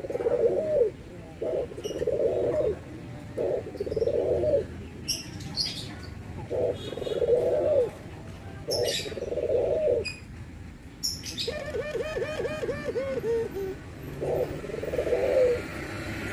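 Puter doves (ringneck doves) cooing: a string of rolling coos about a second each. Partway through comes a quick run of short, clipped coo notes.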